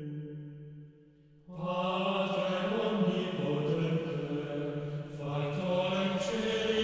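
Soundtrack music: a held chord fades out, then about a second and a half in, sustained chanted singing voices enter, moving to new notes near the end.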